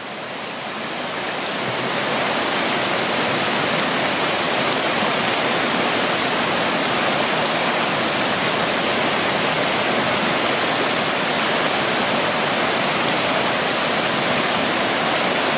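Whitewater rapids of a rocky mountain brook rushing in a steady, dense wash of noise. The sound swells over the first two seconds, then holds level.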